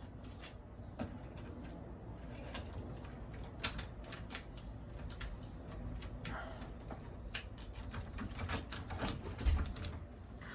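Irregular light metallic clicks and rattles of a Schlage entry-door lockset being handled and fitted back into the door.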